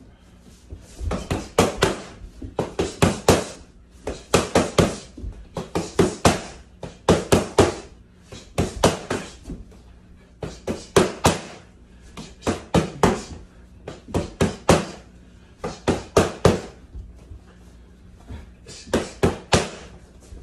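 Boxing gloves smacking focus mitts in quick three-punch combinations, each combination a tight burst of sharp slaps, repeated about a dozen times a second or so apart, with a short pause near the end.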